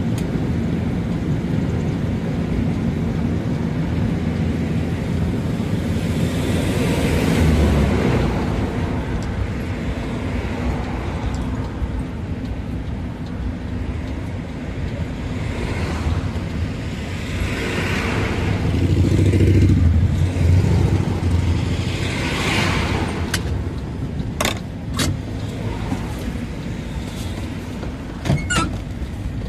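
A vehicle's engine and road noise heard from inside the cab while driving, a steady low hum that grows louder twice. A few sharp clicks come near the end.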